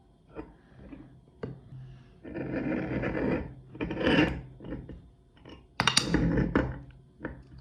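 Scraping and rubbing with clinks of metal and dishes from a meat grinder being worked and handled. A steady rasping stretch begins about two seconds in and lasts over a second, and a louder clatter comes near the end.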